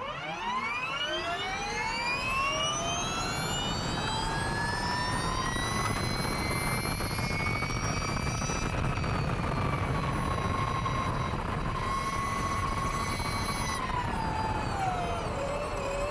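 Ducati V21L electric MotoE racing motorcycle accelerating flat out from a standing race start: the electric motor's whine climbs steeply in pitch, holds high at speed, then falls and wavers near the end as the bike slows. Heard onboard, over a steady rush of wind and road noise.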